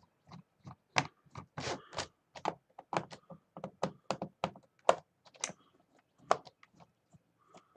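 Plastic gaming keyboard being handled during disassembly: an irregular string of sharp clicks and knocks, a few of them louder.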